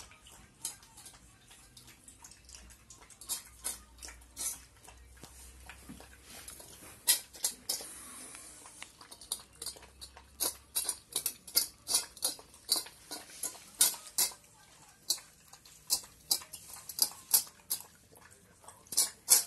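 Stainless steel dog bowl clinking and rattling as a Siberian husky puppy feeds from it, its muzzle knocking the metal. The clinks are sparse at first, then come about twice a second.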